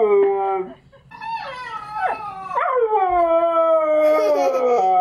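Siberian husky howling: one howl trails off in the first second, then after a short pause a long howl starts high and slowly slides down in pitch.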